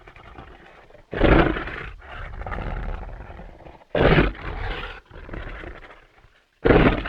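Dinosaur roar sound effects: three roars about three seconds apart, each starting suddenly and loud, then trailing off over a second or two.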